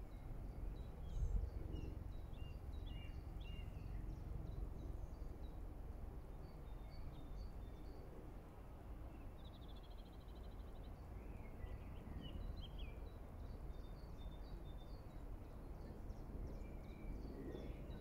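Outdoor park ambience: a low steady rumble with small birds chirping and calling throughout, including a short rapid trill about ten seconds in. A brief bump about a second in.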